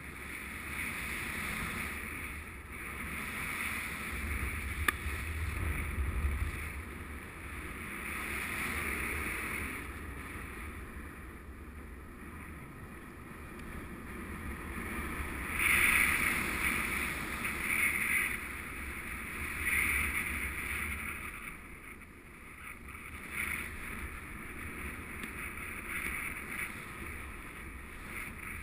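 Wind rushing over an action camera's microphone as a paraglider flies, swelling and easing every few seconds, with a deeper rumble for a few seconds early in the glide.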